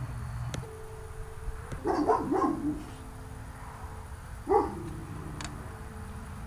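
Dog barking: a quick run of about three barks about two seconds in, then a single bark a couple of seconds later.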